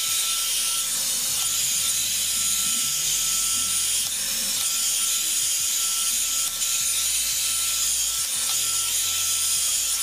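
Revlon One-Step hot-air brush dryer blowing steadily on its drying setting, not the cool setting: a continuous airy hiss with a faint steady whine. It is not really loud.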